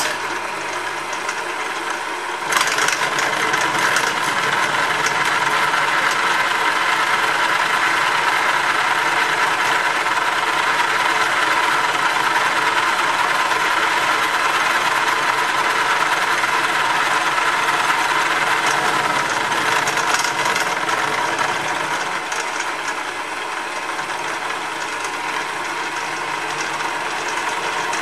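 Hare and Forbes HM48 milling machine running with an end mill taking a light half-millimetre cut. The noise sets in suddenly and grows louder and harsher about two and a half seconds in as the cutter bites, then stays steady.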